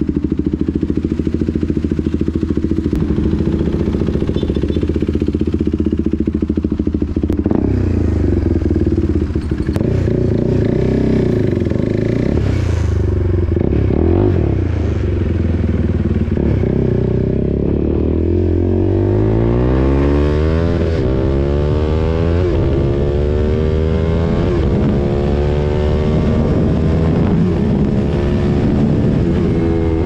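KTM RC 390's single-cylinder engine breathing through an SC-Project aftermarket exhaust. It idles steadily at first, its revs rise and fall at low speed from about seven seconds in, and in the second half it pulls away hard, the pitch climbing again and again through the gears.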